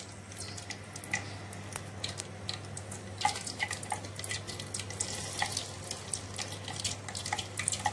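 Hot oil sizzling and crackling as a flour-coated chicken drumstick is lowered in for the first fry of a double fry. The popping grows busier about three seconds in.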